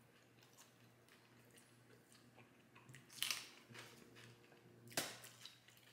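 A person chewing a crispy fried chicken wing, with a couple of louder crunchy bites about three and five seconds in.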